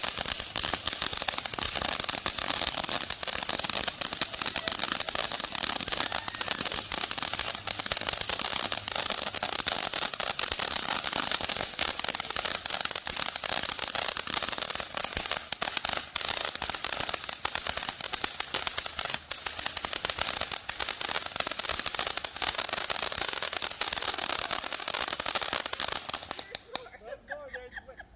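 Ground fountain firework spraying, a steady loud hiss packed with crackles and pops that cuts off suddenly about 26 seconds in as it burns out.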